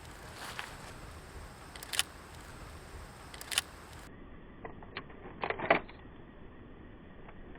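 Film camera shutter clicks: single sharp clicks about every second and a half, then a quick cluster of several clicks a little past halfway.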